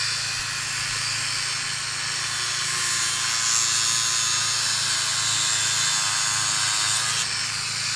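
Dremel rotary tool with a cutting disc running at high speed, a steady high-pitched whine, as it cuts through synthetic winch rope.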